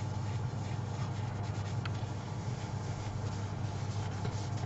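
Cloth rubbing over the turned surface of a yew vase, wiping on hard wax oil by hand: an irregular soft scuffing over a steady low hum.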